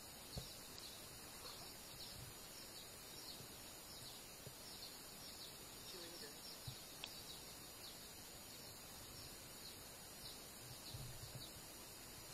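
Faint outdoor background: a steady hiss with a run of short, high, falling chirps repeating every fraction of a second, and a few soft knocks.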